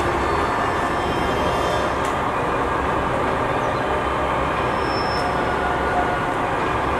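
Steady running of a diesel railcar's engine, an even rumble with no change in pace.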